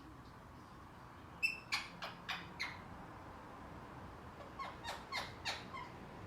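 Indian ringneck parakeet giving short, sharp calls in two runs of four or five, about three a second, the first run louder.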